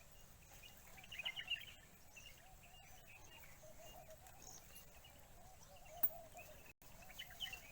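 Faint outdoor ambience with scattered bird chirps, a cluster about a second in and another near the end, over a faint wavering call. A single sharp click about six seconds in.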